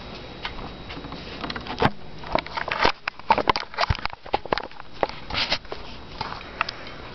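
Handling noise: an irregular run of knocks, bumps and rubbing sounds as the camera is picked up and moved about while the rifle is handled. It starts about two seconds in and dies away near the end.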